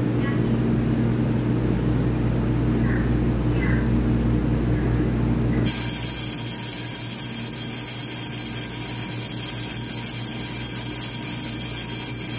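Steady low hum of a stationary EMU3000 electric multiple unit waiting at the platform. About six seconds in, an electric bell starts ringing suddenly and keeps ringing, like a platform departure bell signalling that the train is about to leave.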